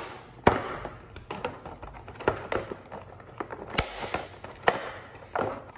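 Toy packaging being handled and opened: a string of sharp clicks and taps at irregular intervals.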